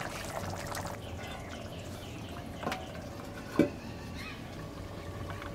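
Fish curry simmering in a steel pan over a wood fire, its gravy almost done. About two and a half seconds in there is a light click, and about a second later a louder, sharp metal clank as a steel plate is set on the pan as a lid.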